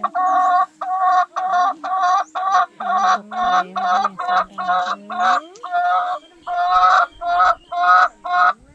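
Domestic hen cackling the egg-laying song: a rapid run of about sixteen loud, repeated clucks, roughly two a second, that stops shortly before the end.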